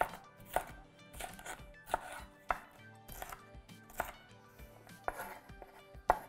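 Chef's knife dicing a red bell pepper on a wooden cutting board: sharp knocks of the blade on the board about once every half second to second, some followed by a brief slicing scrape.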